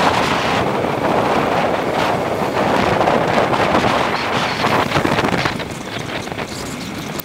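Wind buffeting the microphone of a bicycle-mounted camera while riding, a loud rushing rumble that eases off somewhat about two-thirds of the way through.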